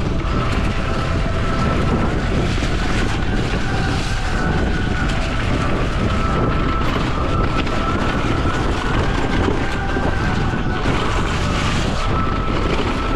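Mountain bike riding a dirt trail: tyres rolling and rattling over the ground, with steady wind buffeting on the camera microphone. A thin high tone runs through it and steps up and down in pitch.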